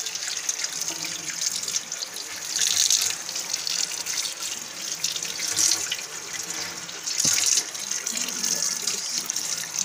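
Kitchen tap running into a stainless-steel sink, the stream splashing over a small pet being washed under it. It grows louder for a moment a few times as the water hits the animal and hands differently.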